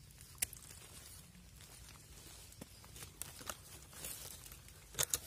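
Dry forest leaf litter rustling, with a few sharp crackles about half a second in and again near the end.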